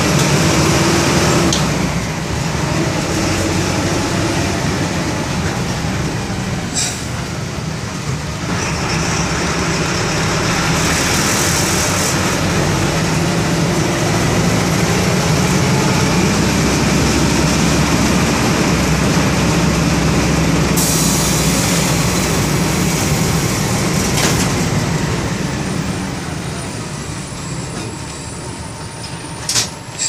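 Four-cylinder inline MWM 4.12 TCE diesel (150 hp) of an Agrale MA 8.5 bus running with a steady low drone. There are a few hisses of compressed air from the bus. The sound fades over the last few seconds.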